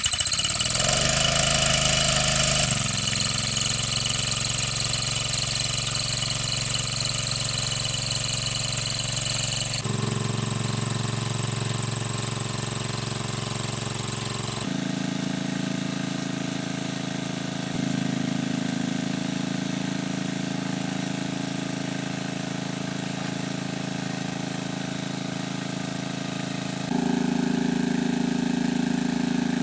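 A small engine running steadily at a constant speed. Its tone and loudness change abruptly several times.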